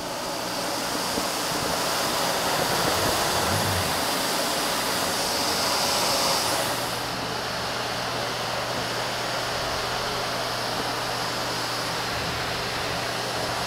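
Vacuum cleaner running steadily with a hard-floor tool. About halfway through its high-pitched hiss drops away, leaving a lower, steady hum.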